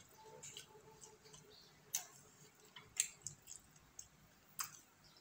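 A person eating by hand and chewing: scattered sharp wet mouth clicks and smacks, three of them louder, over faint chewing.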